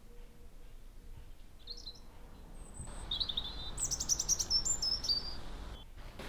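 Small songbirds chirping in quick, high twittering phrases over a background hiss. They come in about halfway through, after one faint chirp earlier, and cut off suddenly near the end.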